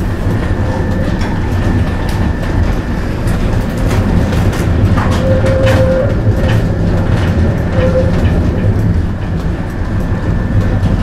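Tatra KT4D articulated tram running slowly, heard from inside the passenger saloon: a steady low rumble from the wheels and running gear with scattered clicks, and brief whining tones about five to six and eight seconds in.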